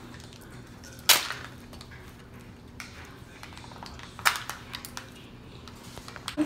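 Kinder Egg's yellow plastic toy capsule snapping open with a sharp click about a second in, then another sharp click a little after four seconds and a few light ticks as the small plastic toy parts inside are handled.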